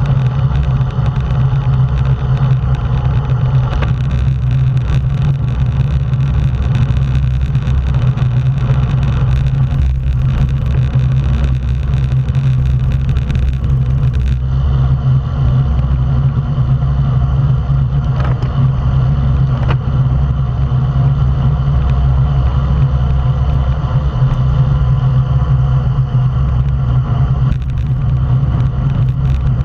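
Steady, loud wind rumble buffeting the microphone of a camera on a road bike moving at race speed in a group of cyclists.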